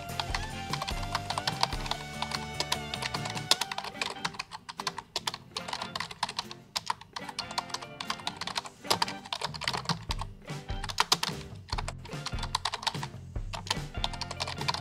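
Typing on a computer keyboard: quick, irregular key clicks, with background music playing underneath.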